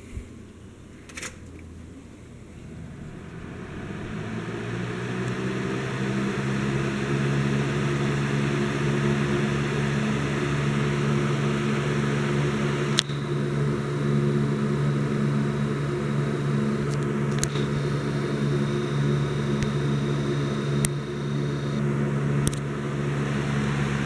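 Lasko box fan's rotary knob clicking twice, then the fan spinning up over a few seconds to a steady run: rushing air over a low, even motor hum.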